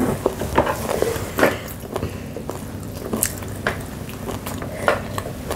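Chewing and biting of fried chicken gizzards, with a few short sharp clicks.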